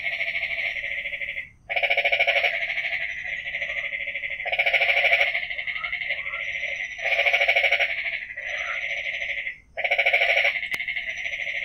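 A chorus of frogs calling at the water's edge: loud, fast-pulsed trilling calls in bouts about a second long, repeating every two to three seconds, with fainter calls from other frogs in between.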